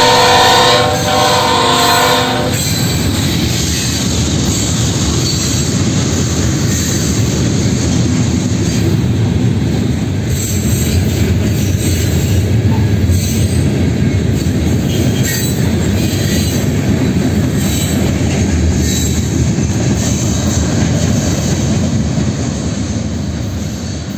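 A diesel freight locomotive's horn sounds a steady chord for the first two seconds or so as the locomotives pass. Then the freight train's hopper and gondola cars roll by with a steady, heavy rumble of steel wheels on rail and brief high wheel squeals now and then.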